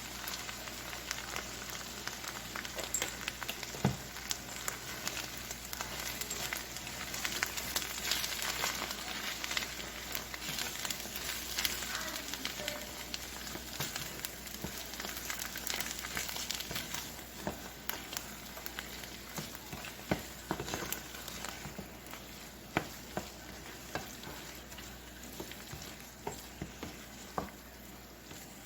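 Spinach, broccoli and cheese mixture with heavy cream sizzling in a hot pan as it is stirred, with many sharp clicks and scrapes of the spoon against the pan. The sizzle is loudest around the middle and dies down toward the end, leaving scattered clicks.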